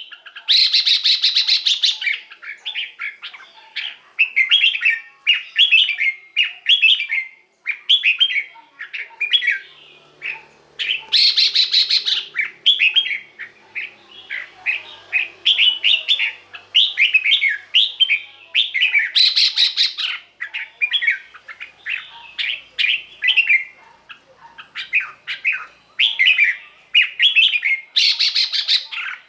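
Red-whiskered bulbul singing continuously in quick, short chirping phrases. A louder, harsher burst breaks in about every eight seconds.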